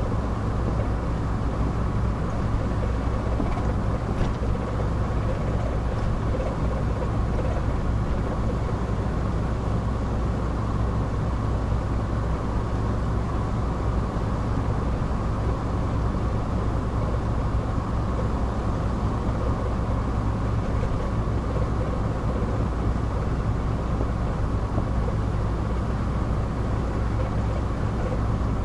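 Car cruising at a steady speed, heard from inside the cabin: a steady low drone of engine and tyre noise on the road.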